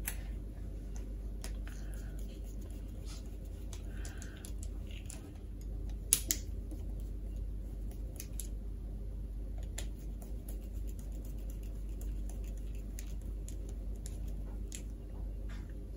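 Small clicks and scrapes of a screwdriver turning the screws of a plastic strip connector to clamp wires, with a sharper pair of knocks about six seconds in, over a steady low hum.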